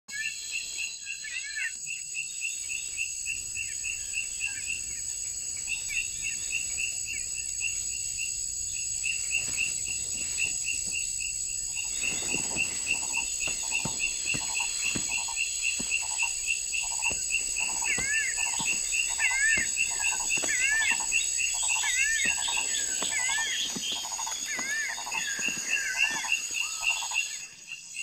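Chorus of calling insects and frogs: a steady high-pitched insect drone with fast repeating chirps. About halfway through a slower pulsing call joins, with looping whistled calls near the end.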